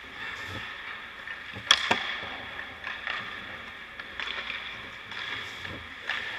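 Hockey skate blades scraping and carving on rink ice over a steady hiss of rink noise, with two sharp knocks close together about two seconds in and fainter clicks later.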